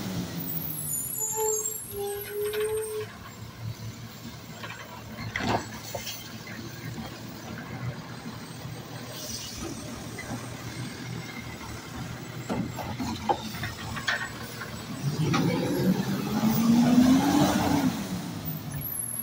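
Automated side-loader garbage truck emptying a wheeled cart: the diesel engine runs throughout, a short squeal from the arm comes a second or two in, and the arm and cart knock and clunk as the cart is dumped. Near the end the engine revs up and back down to power the hydraulics.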